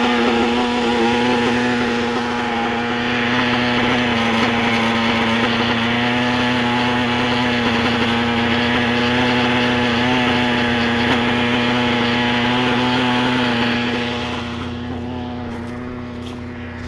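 Radio-controlled helicopter hovering, its motor and rotor giving a steady, even-pitched whine; it gets quieter a couple of seconds before the end.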